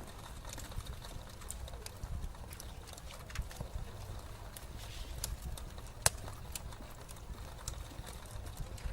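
Irregular light taps and clicks of painting work at a desk, over a steady low hum.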